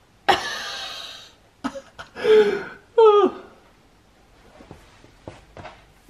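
A man sighs heavily, then gives two short strained grunts that fall in pitch, with a few light clicks between and after them, as he works at tightening loose exhaust bolts.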